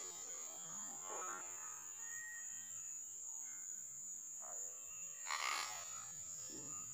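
A frog lure is being retrieved across the surface of a stream on a spinning rod, over a steady high-pitched buzz. About five seconds in there is a short, splashy rush of noise.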